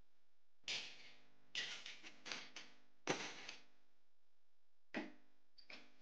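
Plastic wall switches being handled on a wooden workbench: several short clicks and knocks in small clusters as the switch plates are picked up, turned over and set down.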